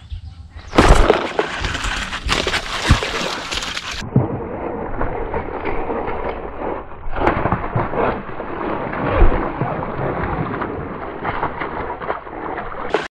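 Water splashing and sloshing as a hooked fish thrashes at the surface of a weedy pond, with rough noise setting in about a second in.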